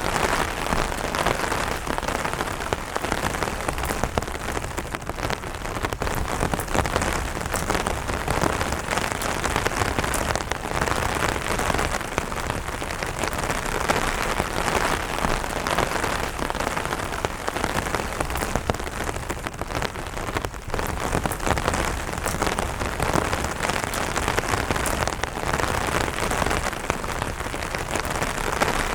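Light rain falling steadily on an umbrella, a dense, even run of separate drop taps.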